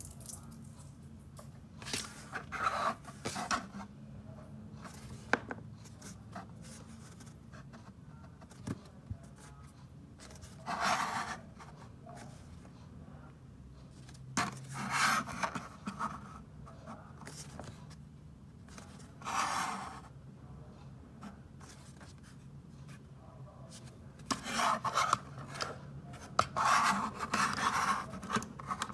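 Short, scattered rubbing and scraping handling sounds, with a cluster near the end, as of hands working packaging and a small diecast model car.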